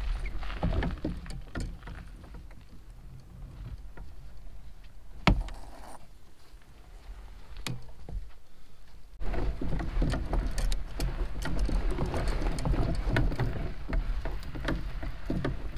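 Fishing kayak being wheeled along pavement and then gravel: a continuous rattling crunch of wheels and loose gear, with clicks throughout. It goes quieter through the middle, with one sharp knock about five seconds in, then gets louder and rougher over the last several seconds.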